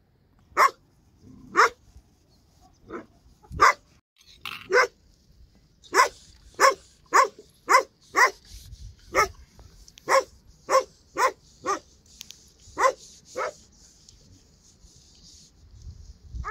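A dog barking over and over, about eighteen barks. The first few are spaced out, then comes a faster run of about two barks a second before the barking stops.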